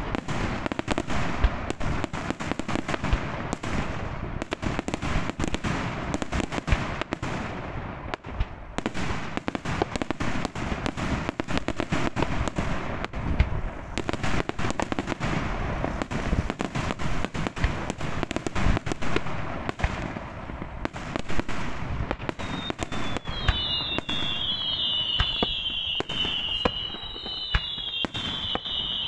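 Daytime fireworks display: a dense, continuous barrage of rapid bangs and crackles from exploding shells and firecrackers. About three-quarters of the way through, a high, wavering whistling joins in, like several whistling shells going up at once.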